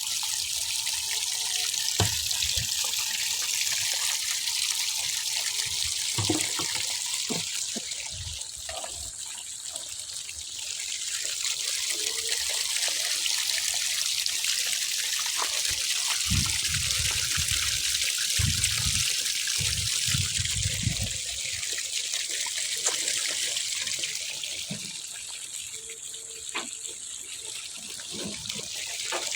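Water gushing steadily from a newly drilled bore well, the drilling having struck flowing water. Occasional low knocks come through under it.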